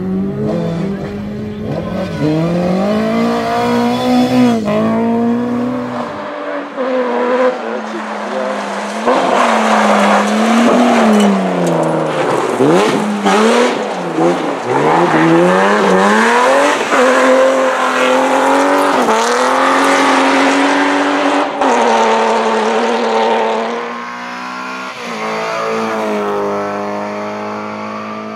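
Rally car engine revving hard, its pitch repeatedly climbing and dropping with gear changes and lifts off the throttle, through several cut-together clips.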